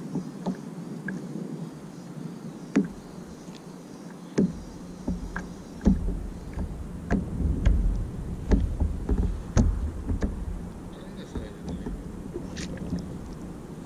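Water slapping against a plastic fishing kayak's hull: irregular sharp knocks roughly once a second over a low wash, with a low rumble joining about four seconds in.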